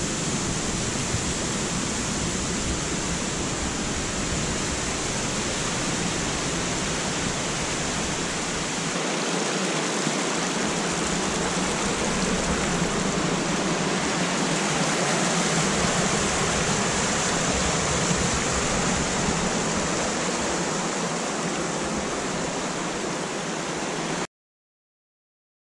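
Steady rushing of a whitewater creek cascade, cutting off suddenly near the end.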